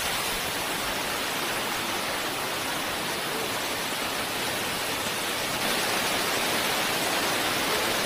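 Steep mountain cascade rushing over rocks, a steady, even roar of white water.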